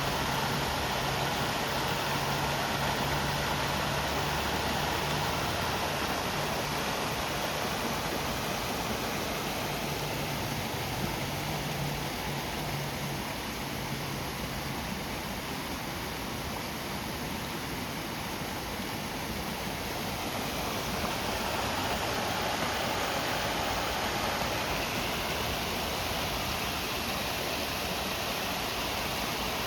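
River Tolka's water rushing steadily over its bed. A low engine hum sits under it and stops about halfway through.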